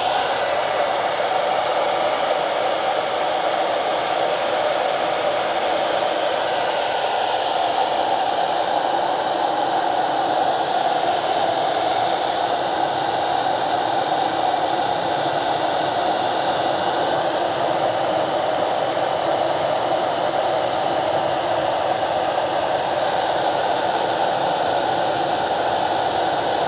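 Hand-held hair dryer running steadily on its low, warm-or-cool setting, blowing air into a basket of lit charcoal briquettes to fan the small fire up. An even rushing with a faint steady whine.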